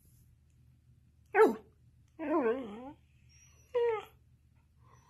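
A dog vocalizing in three separate calls: a sharp falling yelp about a second and a half in, the loudest, then a longer call that wavers up and down in pitch, then a short yip near the end.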